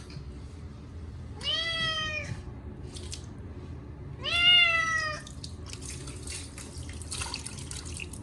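Munchkin cat giving two long, loud meows of protest at being bathed, each rising then falling in pitch. In the last few seconds comes a run of splashing and dripping water.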